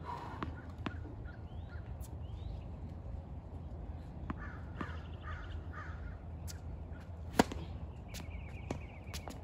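A tennis ball bouncing on a hard court: a few scattered knocks, with one sharp, loud one about seven seconds in. Crows cawing a few times in the background around the middle.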